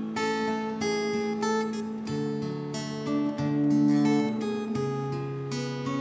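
Background music: acoustic guitar strummed and plucked, with held notes.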